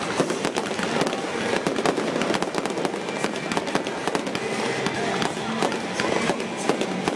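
Aerial fireworks display: many shells bursting in rapid, overlapping succession, a dense barrage of bangs and crackles.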